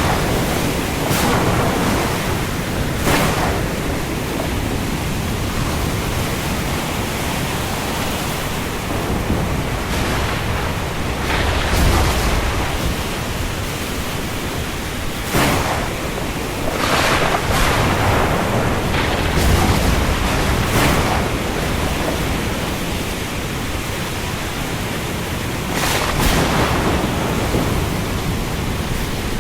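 Heavy rain falling over the sea with wind: a dense, steady hiss with brief louder swells every few seconds.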